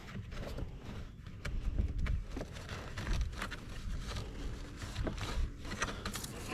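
Scattered small clicks and plastic knocks from handling a car door panel and its fittings while connectors and the door handle cable are reattached, over a low rumble.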